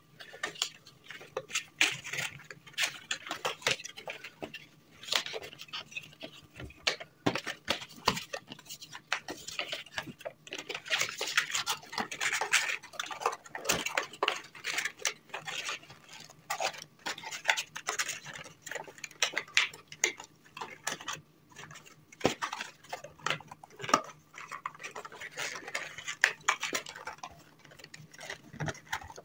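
Thin cardboard gift box being folded and assembled by hand: irregular rustling and creasing of the card, with many light taps and clicks.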